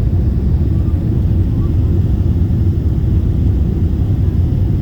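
Steady low rumble of an airliner, heard from inside the passenger cabin: a Boeing 777's engines and airflow, with no separate events.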